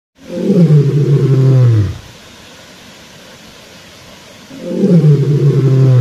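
Two deep, roar-like calls, each nearly two seconds long and sliding down in pitch, the second starting near the end. A faint steady rushing hiss fills the gap between them.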